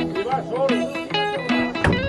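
Background music: a song led by plucked guitar, with a singing voice gliding between notes and a sharp percussive hit near the end.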